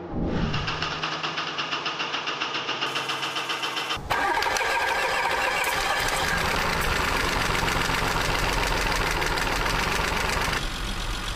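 Audi Q5 3.2 V6 engine being cranked by its starter, with about five or six even pulses a second, then catching about four seconds in and running steadily at a fast idle. This is the engine starting up after its overhaul.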